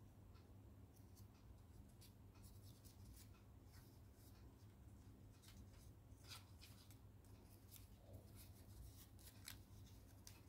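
Faint crinkling and rustling of a sheet of paper being folded and creased by hand: a scatter of short, crisp crackles over a low steady hum.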